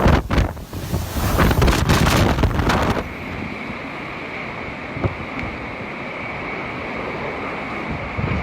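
Typhoon-force wind gusting hard against the microphone, with a deep buffeting rumble. About three seconds in it cuts to a steadier rush of wind and rain with a high, steady whine running through it.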